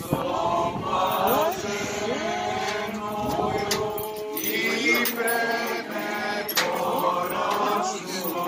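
Slow chanting with long, gliding held notes.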